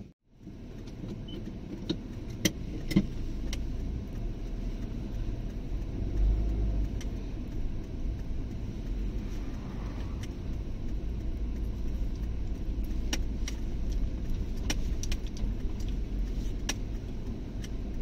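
Car driving slowly, heard from inside the cabin: a steady low engine and road rumble, with occasional light clicks and rattles.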